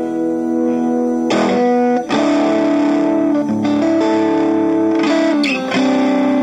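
Yamaha HR 1000 played through distortion: held, sustained chords that change every second or two.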